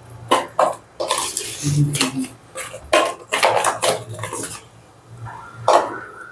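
Metal spoon scraping and clinking against a stainless steel bowl while stirring a thick, wet yogurt marinade, in quick repeated strokes. The stirring eases off about three-quarters of the way through, with one more stroke near the end.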